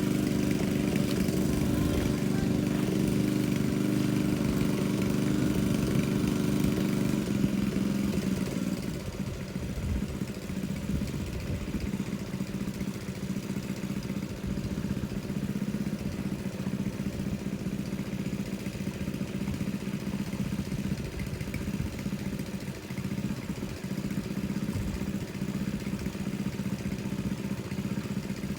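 Small engine running steadily, driving a water pump that draws down a fish pond. About eight seconds in, its sound drops a little in level and then holds steady.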